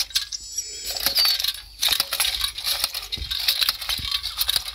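Hand jab planter (matraca) loaded with corn seed, rattling and clicking as it is carried and worked, the kernels clinking in its seed box. A couple of dull thumps near the end.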